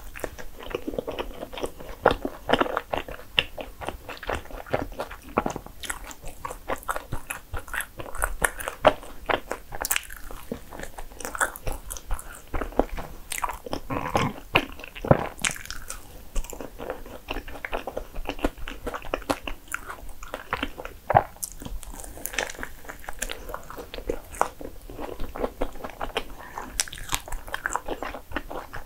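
Close-miked eating of a soft cream-filled bagel sandwich: repeated bites and chewing with wet mouth sounds and many short sharp clicks, picked up by a clip-on microphone near the mouth.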